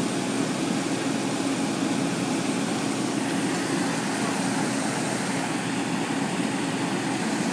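An engine running steadily at one speed: a constant drone with a low hum under it.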